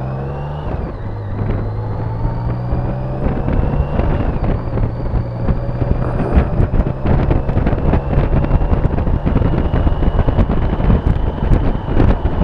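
BMW K75's three-cylinder engine accelerating. It changes gear about a second in, then its revs climb slowly as the bike gathers speed. Wind buffets the microphone more and more toward the end.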